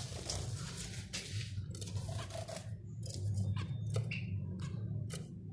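Budgerigars moving about in their cage: irregular scratchy rustling and clicks, with a few faint short chirps, over a low steady hum.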